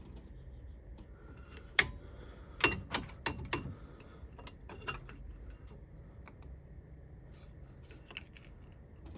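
Sharp metal clicks and knocks of hand work on the brake caliper, a cluster of several between about two and four seconds in, then lighter scattered ticks.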